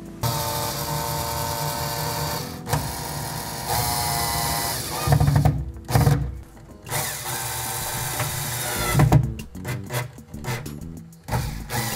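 Power screwdriver driving screws through the hob's metal fixing clips into the underside of the countertop, running in several spurts of a second or two with brief stops, then short stuttering bursts near the end.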